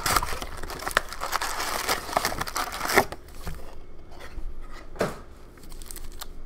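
A sealed box of Upper Deck Series 2 hockey cards being torn open by hand, crinkling and tearing for about three seconds with a few sharp snaps. Then quieter rustling as a foil card pack is handled.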